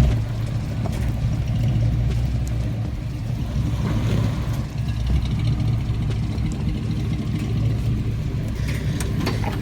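An off-road SUV's engine running steadily, its sound deep and low.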